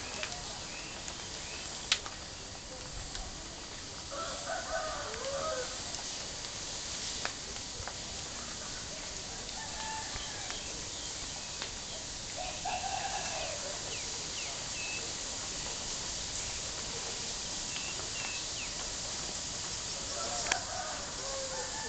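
Rooster crowing three times, each crow about a second and a half long and several seconds apart, over a steady background hiss. A sharp click about two seconds in.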